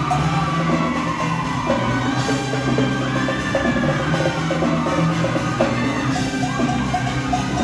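Live band music with a drum kit and bass, accompanying a show choir performance.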